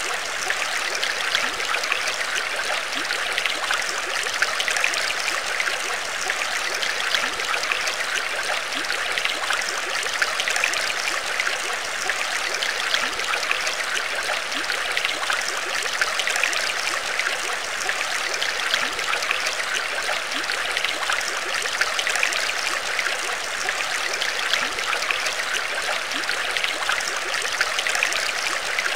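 Steady trickling, bubbling water: a continuous fine crackle of small drops and bubbles at an even level, with no change.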